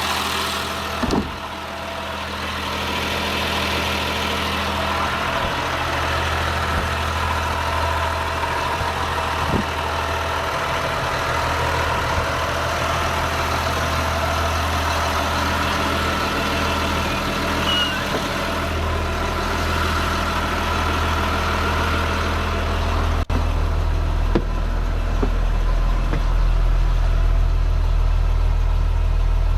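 2006 Blue Bird Vision school bus's diesel engine idling steadily, with a few short clicks. About 23 seconds in, the low rumble grows deeper and louder.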